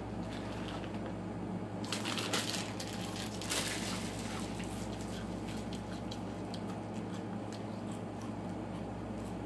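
A sweet snack being eaten fast from a small packet: two short spells of crunching and crinkling about two and three and a half seconds in, then scattered small clicks, over a steady low hum.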